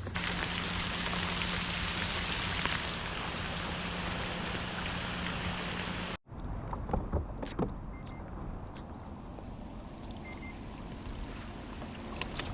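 Steady rain hiss around a kayak, with a low, even hum under it for about six seconds. The sound breaks off abruptly, then comes back as softer rain with scattered small knocks and taps.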